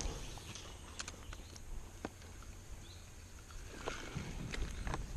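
Faint scattered light clicks and small knocks, about seven in all, over a low rumble: fishing tackle being handled on a float tube.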